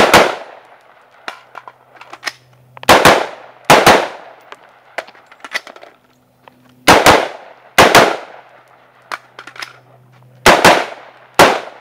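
AR-15-style semi-automatic rifle fired in quick double taps: about a dozen sharp shots in close pairs, grouped with pauses of a few seconds between.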